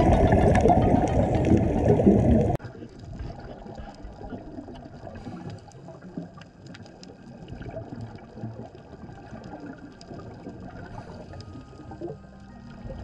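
Scuba regulator exhaust bubbles heard underwater, a loud bubbling rumble that cuts off abruptly about two and a half seconds in. After the cut comes a much quieter underwater ambience: a faint watery hiss with scattered small clicks.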